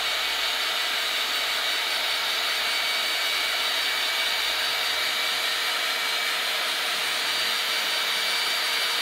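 Hand-held hair dryer running steadily: an even rush of blown air with a constant motor whine.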